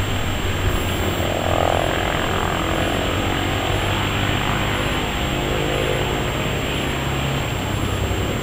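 Racing motorcycle engine running on the course, a steady drone heard from some distance.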